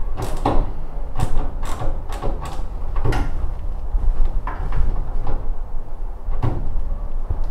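Flexible corrugated plastic exhaust hose being worked onto a laser cutter's exhaust port by hand: a run of irregular scraping and crinkling rubs, thinning out after about four seconds, over a steady low rumble.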